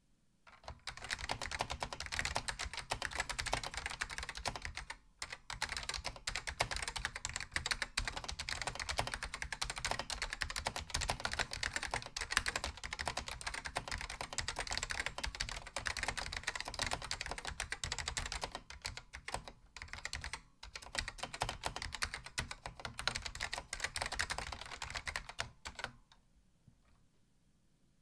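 Continuous fast typing on a Chicony KB7601 keyboard with Alps SKCM White switches that have been linearized (click leaves removed), fitted mostly with SGI Beige dye-sub keycaps: a dense run of keystrokes. There are short breaks about five seconds in and about twenty seconds in, and the typing stops near the end.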